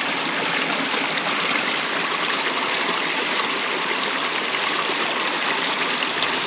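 Small mountain brook running: a steady, even rush of flowing water.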